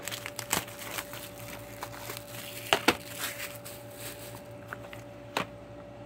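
Clear plastic shrink-wrap being torn and peeled off a DVD case, crinkling, with several sharp crackles and clicks, the loudest about three seconds in.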